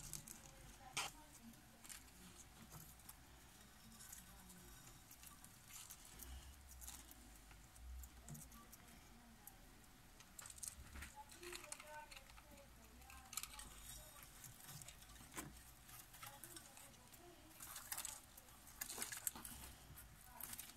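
Faint scattered clicks and rustles of plastic feeding tongs and a plastic cup being handled, with a sharper click about a second in and a cluster of clicks near the end.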